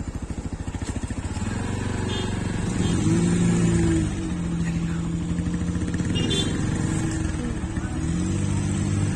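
Vehicle engines at the roadside: an idling engine with an even pulse, then engines of cars pulling up close by, their pitch rising about three seconds in, holding, dropping around seven seconds and rising again near the end.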